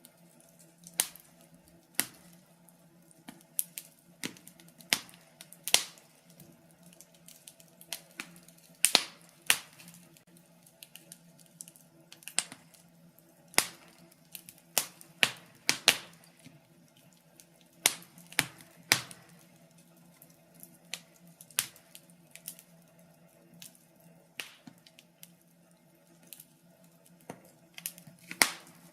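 Wood fire crackling in a fireplace: irregular sharp pops and snaps, sometimes several close together, over a faint steady hum.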